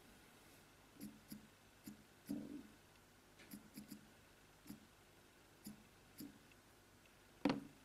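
Fingertips tapping on smartphone touchscreens while typing on the on-screen keyboards: about a dozen soft, irregular taps, with one louder tap near the end.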